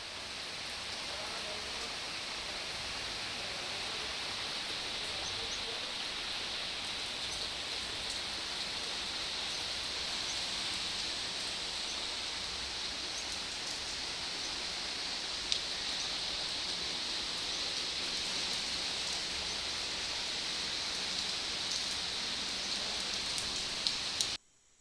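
Heavy rain falling steadily, a dense even hiss, with an occasional sharp tick of a drop.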